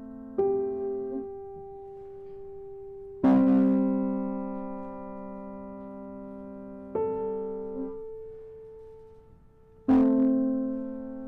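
Grand piano playing slow, sustained chords: four are struck about three seconds apart, each left to ring and fade, the second and fourth the loudest.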